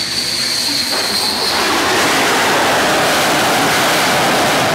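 Jet roar of a MiG-29K's twin turbofans as it comes in and lands on an aircraft carrier's deck: a loud, steady rushing noise that swells about a second and a half in, while a thin high whine fades out.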